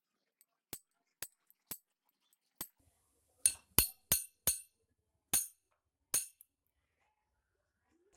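Hammer striking a manual impact driver to loosen a stripped screw: about ten sharp metallic clinks at uneven spacing. They are light at first and much harder from about three and a half seconds in.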